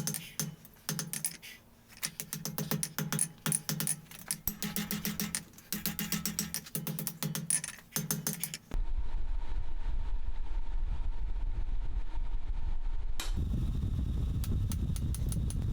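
Quick hammer blows on steel, several a second, for most of the first nine seconds. The sound then changes abruptly to a steady machine running, which gets louder about thirteen seconds in.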